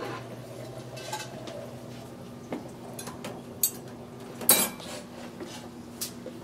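Dishes and cutlery clinking in an open dishwasher's racks: a few separate clinks, with one louder clatter about four and a half seconds in, over a faint low steady hum.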